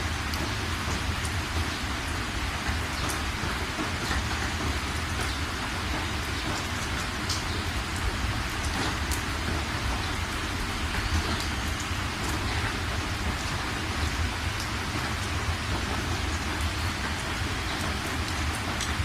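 Steady rain falling, with scattered sharper drop ticks over an even hiss and a constant low rumble underneath.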